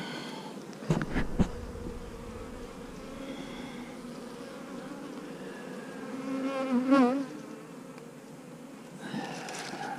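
Honeybees buzzing around an opened hive, a steady hum, with a louder buzz wavering in pitch as a bee passes close around seven seconds in. A few sharp knocks about a second in.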